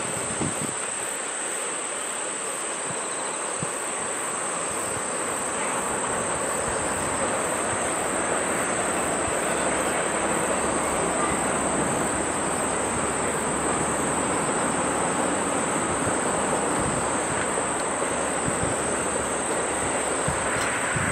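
Oigawa Railway steam train running along the valley: a steady rumble of the locomotive and carriages on the rails that slowly grows louder, with a constant high insect trill.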